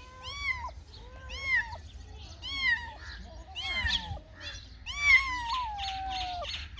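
Cat meowing repeatedly: short, high-pitched meows about once a second, then a longer meow about five seconds in that slowly falls in pitch.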